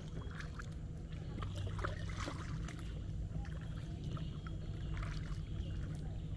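Kayak paddling on calm water: the paddle dipping in, with scattered drips and small splashes over a steady low rumble.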